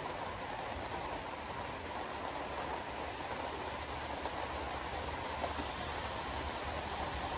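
Steady road noise of a car driving on a wet road in the rain, heard from inside the cabin: an even hiss of tyres on wet pavement and rain, over a low steady hum, with a few faint ticks.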